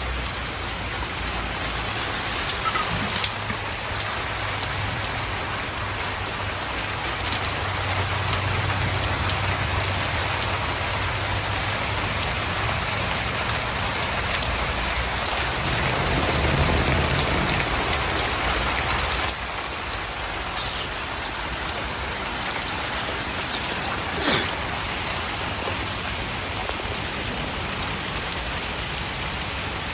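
Steady rain falling, with a few sharp ticks here and there.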